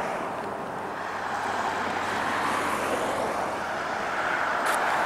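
Road traffic passing on a busy road: a steady rush of tyre and engine noise that swells and eases a little.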